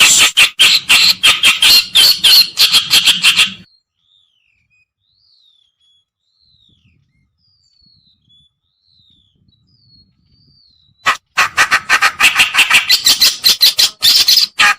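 Kerakbasi reed warbler lure song: loud, rapid harsh chattering that breaks off after a few seconds and leaves only faint thin slurred whistles, then starts again about eleven seconds in.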